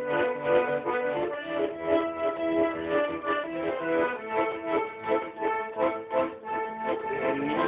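Garmon (Russian button accordion) playing a tune: held melody notes over a steady, rhythmic chord accompaniment.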